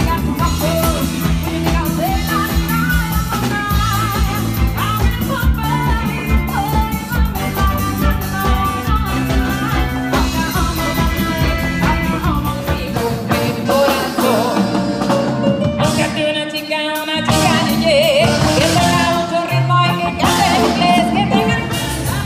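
Live band playing: a woman singing lead over drum kit, bass and electric guitar with a steady dance beat. About 17 seconds in, the music breaks briefly and carries on in a different song.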